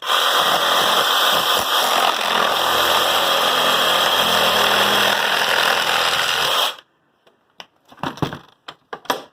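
A motorised power tool running loudly and steadily for about seven seconds, starting at full speed and cutting off abruptly, then a few light clicks.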